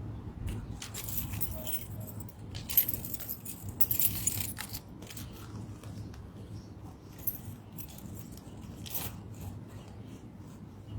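Small metal pieces jingling and clinking in irregular flurries through the first few seconds, with one more near the end, over a steady low rumble.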